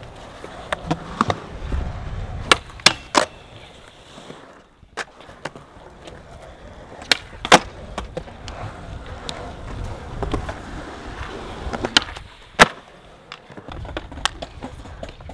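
Skateboard wheels rolling on concrete, a steady low rumble broken by a series of sharp clacks as the board is popped, flipped and landed.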